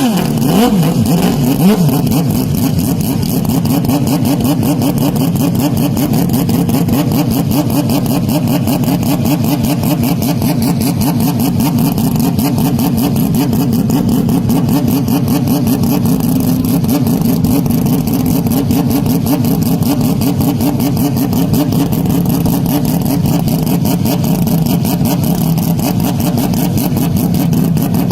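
Porsche 911 RSR race-car engine, heavily bass-boosted and distorted into a loud, steady drone. It rises sharply at the very start, then holds nearly the same pitch throughout.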